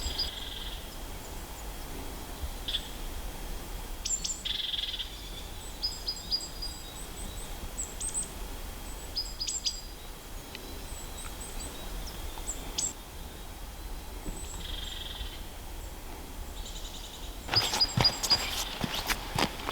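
Small birds calling with short, high chirps, scattered through the whole stretch. Near the end comes a quick run of sharp crunches, likely footsteps on the trail.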